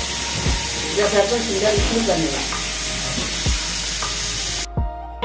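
Steady loud hiss with faint voices behind it and a few low thumps, cutting off abruptly near the end.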